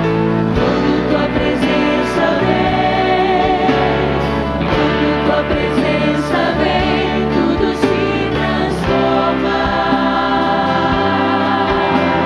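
Live Portuguese-language contemporary worship song: lead singers with a band, keyboard included, and a crowd singing along with them.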